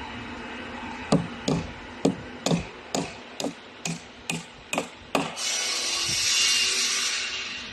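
Hammer blows on a plastic formwork board: ten sharp strikes, about two a second. Then about two seconds of steady harsh noise from a tool.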